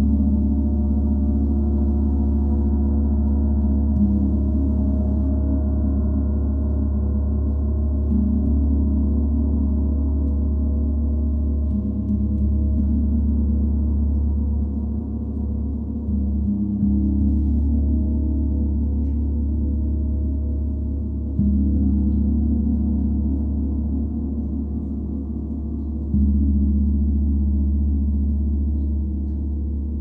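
32-inch Paiste Symphonic gong ringing in a sustained, low, dense wash of tones. It is struck again every few seconds, and each new stroke swells the sound without a sharp attack.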